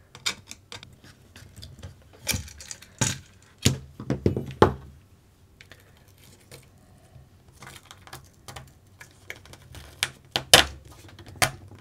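Irregular clicks and knocks of small RC-kit parts and a battery pack being handled and fitted on a workbench, with a quieter stretch in the middle and the loudest knock near the end.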